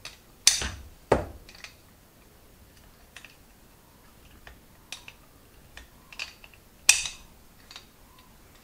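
Metal carburettor parts clicking and knocking as the carburettor body is handled and turned over in the hands: scattered light clicks, with three sharper knocks about half a second in, about a second in, and near seven seconds.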